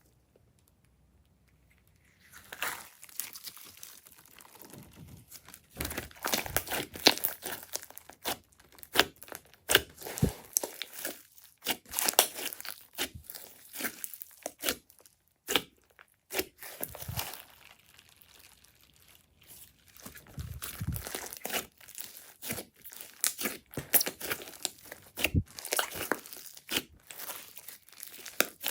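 Glossy slime being squeezed, poked and stretched by hand, giving dense, irregular sticky clicks and pops. It starts about two seconds in and comes in bouts with short pauses.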